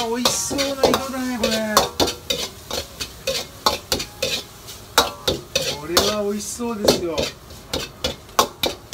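Food stir-frying in a hot frying pan: oil sizzling under quick, repeated knocks and scrapes of a metal utensil against the pan.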